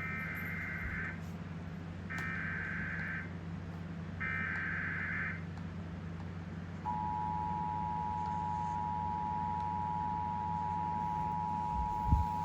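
NOAA Weather Radio emergency alert on a RadioShack 12-519 weather radio. Three one-second bursts of SAME digital header data come a second apart, then about seven seconds in the steady two-tone attention signal begins. Together they are the opening of a newly issued severe thunderstorm warning, over a steady low hum.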